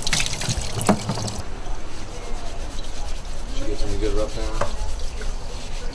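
Water running from a hose onto a sloth's fur, cutting off suddenly about a second and a half in, then gloved hands rubbing and scrubbing the wet fur. A brief pitched sound comes about four seconds in.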